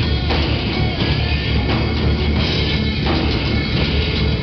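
A live metal band playing: electric guitars, bass guitar and a drum kit, loud and continuous.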